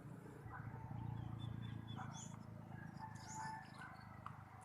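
Faint scattered bird chirps over a low, steady outdoor rumble.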